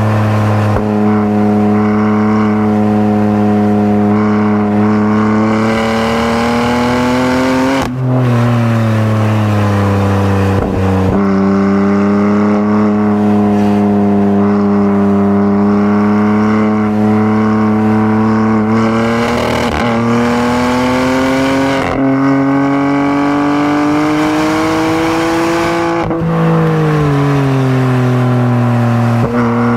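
BMW M3's twin-turbo inline-six running hard around a race track, its pitch climbing steadily through each gear and dropping sharply at each manual gear change, several times over.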